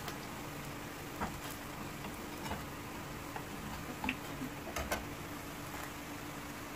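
A few scattered clicks of a metal slotted spoon against the frying pan and plate as pieces of fried bread are lifted out of the oil, the strongest about five seconds in. A faint steady hiss of oil frying runs underneath.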